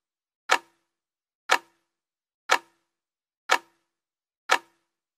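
Clock-tick sound effect of a quiz countdown timer: one sharp tick each second, five in all, each with a brief low ring.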